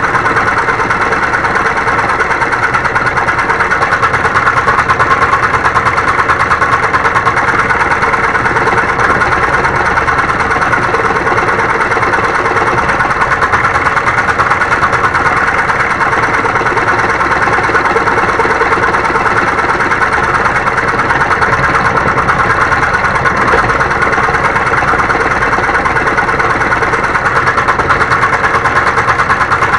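Homemade electric scroll saw running steadily, its reciprocating blade cutting wood with a fast, even rattle.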